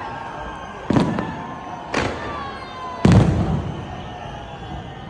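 Fireworks bursting overhead: three booms about a second apart, the third the loudest, each dying away in a rumbling echo.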